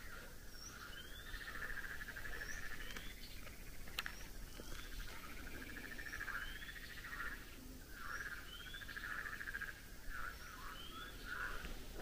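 Frogs calling in a chorus of rapid pulsed trills that come in bouts of a second or so. Over them a bird repeats a short rising call about every second and a half, and there is one sharp click about four seconds in.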